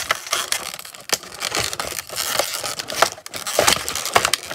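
Clear plastic blister tray crackling and crinkling in the hands, with a string of sharp clicks and pops as accessories are pushed out of their moulded slots.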